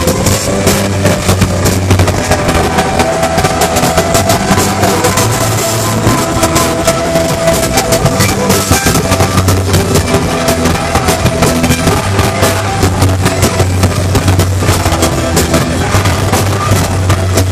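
Rock band playing loud live: electric guitars, bass guitar and drum kit driving steadily, with no singing.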